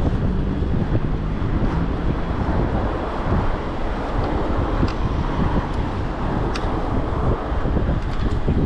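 Wind buffeting the microphone in a steady, low rumble while riding in road traffic, with a few faint clicks in the second half.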